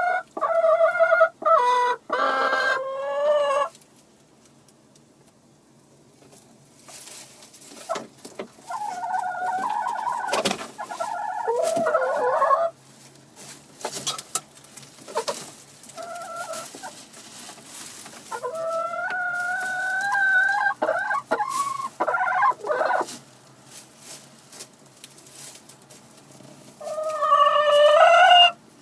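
Chickens clucking and calling in spells, including some long drawn-out calls, with a scatter of short clicks between them.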